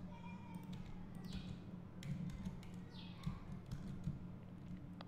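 Faint computer keyboard keystrokes and mouse clicks, a handful of separate clicks, over a low steady hum.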